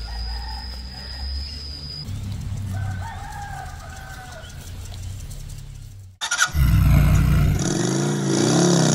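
A rooster crowing twice over a low rumble. About six seconds in, a loud outro sound effect cuts in: a deep rumbling hit followed by a wavering, growling tone.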